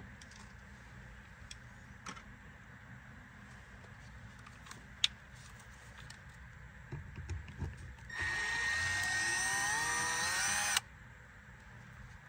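Cordless power screwdriver running for about three seconds, about eight seconds in, backing a screw out of a car's interior door panel, with a motor-and-gear whine that cuts off abruptly. A sharp click comes earlier, about five seconds in.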